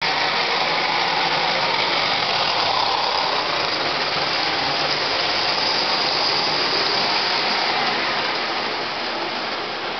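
Lionel model train running past on its track: a steady whirring rush of motor and wheels, growing fainter near the end.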